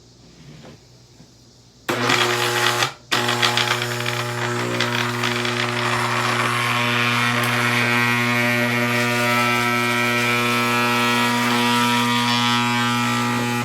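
Hoover vacuum cleaner switched on about two seconds in, cutting out for a moment about a second later, then running loud and steady with a droning hum and a hiss over it.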